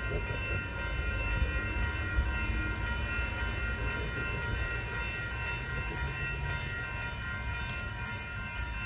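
Grade-crossing warning bells ringing steadily, over a low rumble from a Coaster commuter train approaching the station.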